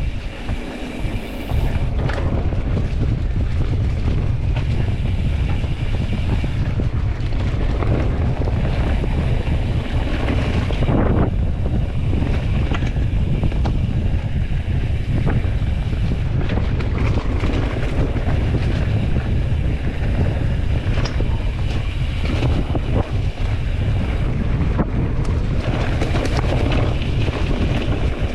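Wind buffeting the microphone: a loud, steady low rumble with hiss above it, a little quieter for the first second or so.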